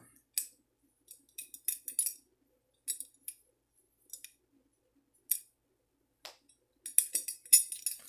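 Large metal belt buckle being handled at a belt: scattered light metallic clicks and clinks, sparse at first and coming thick and fast near the end.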